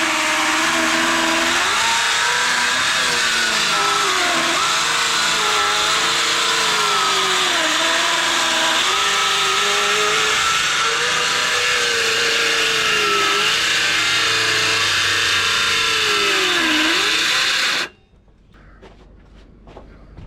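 Electric power saw cutting through a thick acacia slab, its motor pitch sagging and recovering again and again as it strains under load in the cut. It shuts off abruptly near the end, followed by a few light knocks.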